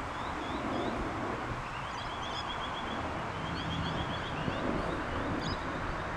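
Wind buffeting the microphone in open air, with birds calling. A small bird twice gives a quick run of high, evenly spaced chirps.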